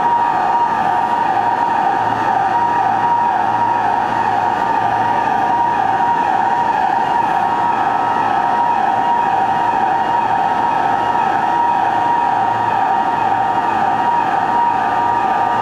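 Tokyo Metro subway platform's emergency alarm buzzer sounding loud and unbroken, a steady electronic tone ringing out through the underground station.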